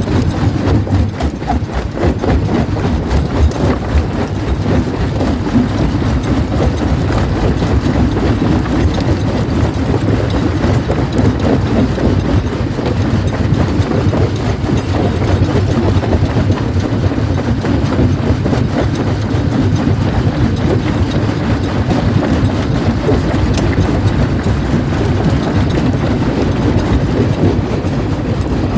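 Jaw crusher running and crushing rock: a loud, continuous low rumble with dense clatter and knocking of stone.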